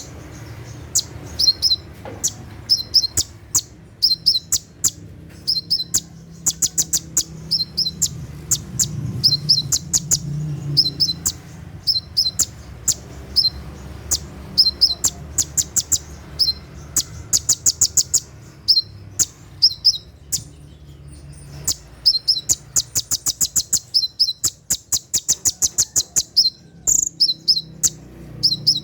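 Brown-throated sunbird (konin, 'kolibri ninja') giving its rapid 'tembakan' song: sharp, high chirps repeated two or three times a second, breaking several times into fast runs of quick notes. A faint steady low hum lies underneath.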